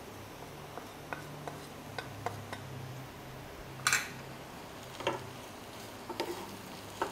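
Wooden spatula tapping and scraping spices off a plate into a pan of mashed potatoes, with scattered light clicks and knocks, a few louder ones in the second half as the spatula strikes the pan and stirring begins.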